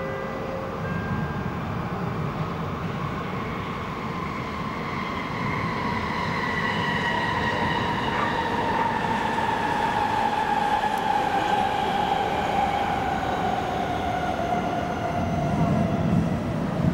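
A passing vehicle: a low rumble under a whine that slowly falls in pitch, getting louder toward the end.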